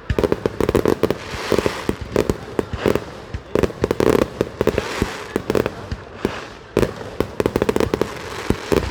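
A fireworks display: shells bursting in quick clusters of sharp bangs and crackles, with short lulls between volleys.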